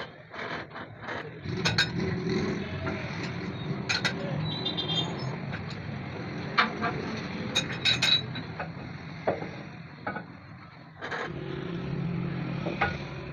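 Metal tools and parts clinking and knocking, a dozen or so sharp strikes, over a low steady rumble that dips briefly about two-thirds of the way through.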